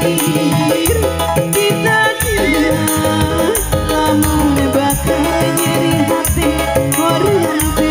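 Live dangdut koplo band music: a woman sings a wavering melody into a microphone over keyboard and a steady drum beat with bright, regular percussion strokes.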